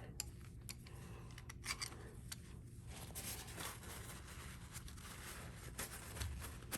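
Faint, scattered small clicks and rubbing of a clamp being fitted and tightened on a glued guitar headstock.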